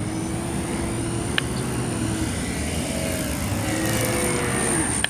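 RC model Cessna's motor and propeller whining in flight as it comes in low and passes close, the pitch sliding downward as it goes by.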